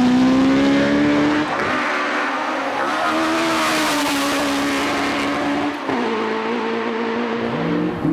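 Ford Escort Mk2 rally car's engine running hard at high revs. Its pitch drops and climbs again with gear changes, about a second and a half in and again near six seconds. A rush of noise comes a few seconds in as it passes close.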